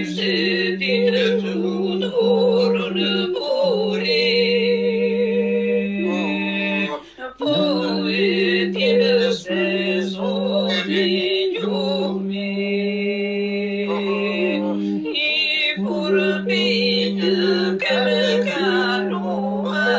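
Unaccompanied singing: a steady held drone under a wavering, ornamented melody line, in the style of Albanian iso-polyphonic song. The drone breaks off briefly three times, about 7, 11 and 15 seconds in.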